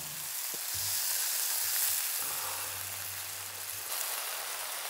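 Chicken pieces and lamb fat sizzling in a steady hiss, pressed between two heated stones.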